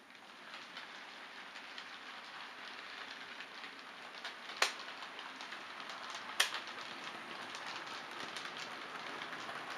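Model electric train in Southeastern livery running on the layout's track: an even rattle of wheels on rail that grows louder as it approaches, with two sharp clicks a little under two seconds apart near the middle.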